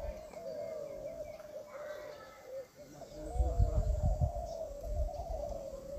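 Many caged contest spotted doves (derkuku, Kelantan type) cooing at once, their rounded coos overlapping into a continuous chorus. A low rumble rises over it a little past the middle.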